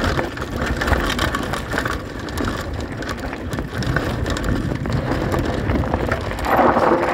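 Downhill mountain bike rolling over a loose gravel trail: tyres crunching on stones and the bike rattling, a steady stream of small clicks and crackles that briefly gets louder near the end.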